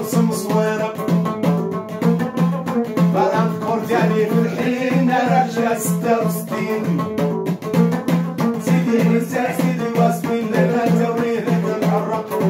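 A Moroccan lotar, a long-necked skin-faced lute, is strummed in a steady, even rhythm, and a man sings over it.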